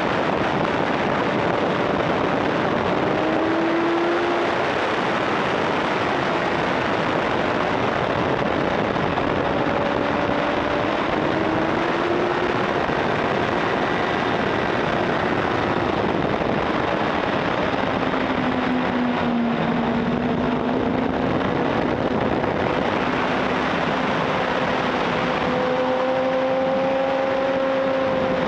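Heavy wind rush over the fairing of a racing motorcycle at speed, with its engine note underneath, drifting slowly up and down through the corners.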